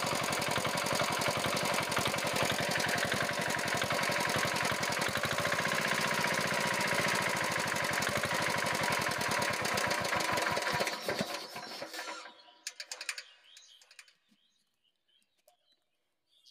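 Chinese single-cylinder diesel engine running with a rapid knocking noise, then shut off about eleven seconds in and slowing to a stop. The knock comes from the rocker gear: the left tappet has too much clearance, which the mechanic takes for the cause.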